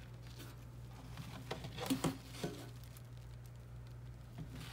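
Quiet room with a steady low hum and a few faint clicks and rustles, about two seconds in, from the plastic wash tub and colander being handled in the sink.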